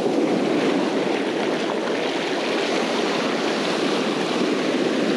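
Shallow surf washing in over wet sand and around the legs and sand flea rake, a steady rush of foaming water.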